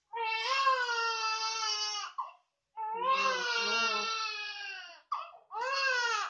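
Newborn baby crying: three long cries with short gasping breaths between them.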